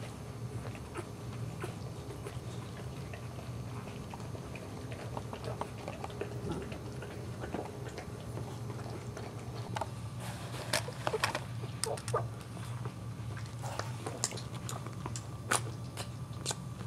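Three-day-old Boxer puppies suckling and the Boxer mother licking them: scattered wet smacking and clicking mouth sounds over a steady low hum, busiest in the second half.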